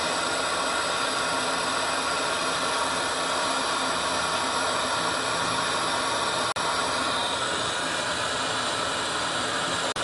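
Oxygen-and-gas glassworking torch burning with a steady hiss as glass is melted in its flame. The sound cuts out for an instant twice, once about six and a half seconds in and once at the end.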